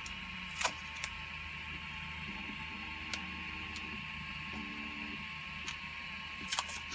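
Light clicks and taps of hard 3D-printed plastic parts being turned over and fitted together in the hands, about five in all, over a steady background hum.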